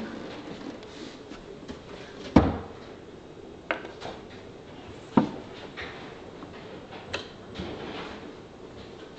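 Handling of a Victor QL-A70 turntable and its clear acrylic dust cover: a series of separate clicks and knocks. The loudest is a thump about two and a half seconds in, with lighter clicks a few times after.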